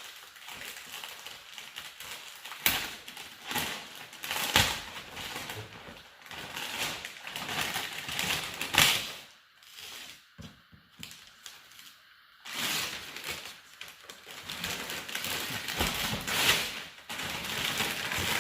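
Gift wrapping paper being torn and crumpled as a present is unwrapped: irregular crackling and rustling with a few sharp rips, pausing briefly about halfway through.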